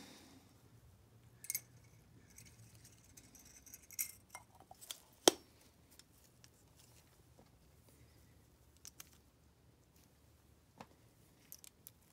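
Small metallic clicks and scrapes of a CV carburetor's vacuum-chamber cover being pressed down over its piston spring and seated, with its cover screws set in by hand. One sharp click about five seconds in is the loudest; lighter clicks come before and after it.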